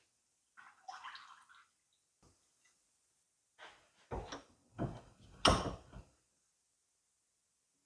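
Hydraulic cylinder parts being handled on a workbench: a brief scrape, then a series of knocks and clunks, the loudest about five and a half seconds in.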